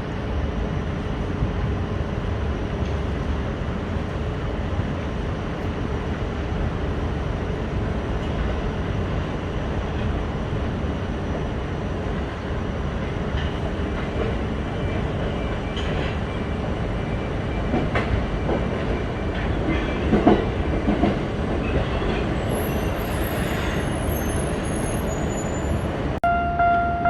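Tokyo Metro Ginza Line train running past, a steady rumble of wheels on rail, with wheel squeal in the last third.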